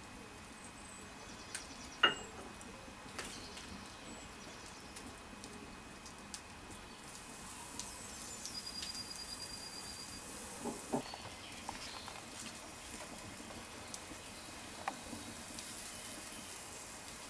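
Quiet background with scattered sharp clicks and knocks as steaks are handled and laid on the grill, the loudest about two seconds in. A short, high, rapid trill comes a little before halfway.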